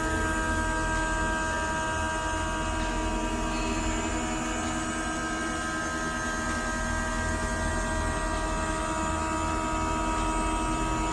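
CNC milling machine running steadily: an even whine of several held tones over a low hum, unchanging throughout.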